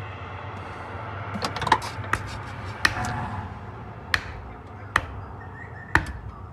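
Payphone keypad buttons pressed one at a time: sharp clicks about once a second, with a cluster of clicks a bit under two seconds in, over a faint low hum.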